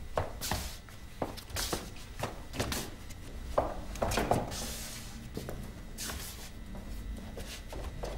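Irregular footsteps and shoe scuffs on a hard corridor floor, with several short hissing slides of shoe soles scraping along it.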